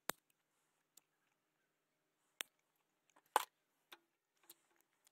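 Small metal parts and hand tools clicking and knocking as they are handled and set down on a plastic folding table: a few separate sharp clicks, the loudest a fuller knock a little past the middle.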